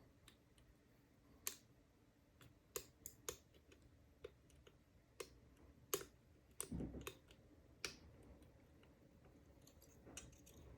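Faint, scattered sharp clicks from a Burg Wächter 21/70 disc-detainer padlock as the discs are turned with a pick, with a soft low bump about seven seconds in.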